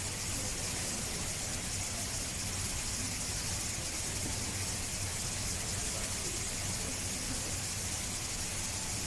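Steady background hiss with a low hum and faint, indistinct voices; no distinct event stands out.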